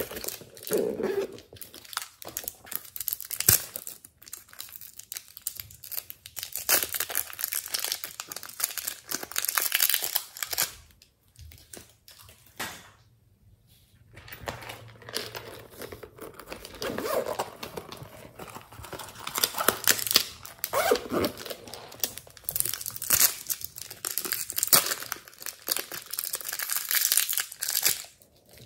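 Thin plastic wrapper crinkling as it is handled and torn open to take out modelling clay. It comes in two long stretches with a quiet pause of a few seconds midway.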